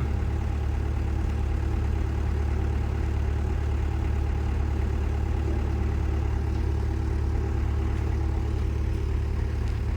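Heavy diesel engine idling steadily, a low, even hum with no revving.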